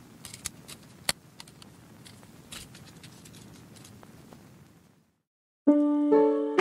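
Faint crinkling and small clicks of plastic wrapping being pulled off a clear plastic laptop hard case. After a short silence, piano music starts loudly near the end.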